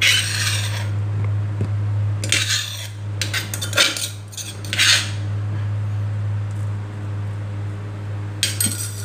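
A spoon scraping and clinking against dishes in several short strokes, over a steady low hum.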